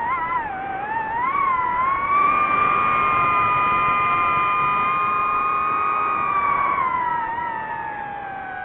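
DJI FPV drone's motors and propellers whining with the throttle: the pitch wavers, rises about two seconds in, holds high and steady, then sinks gradually near the end as the power comes off.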